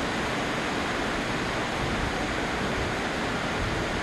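Rain falling steadily on a metal roof, an even hiss with no let-up.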